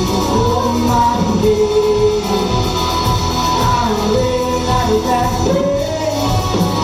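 A live band playing a worship song, with drums and a sung melody over the instruments.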